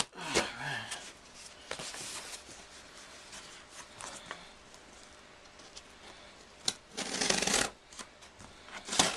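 Cardboard and plastic packaging being handled while a toy box is unpacked: scattered clicks and rustling, with a louder scraping rustle lasting under a second near the end.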